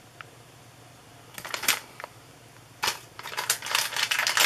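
Plastic soft-bait packet crinkling and crackling as it is handled, in short bursts from about a second and a half in, turning to dense crinkling near the end.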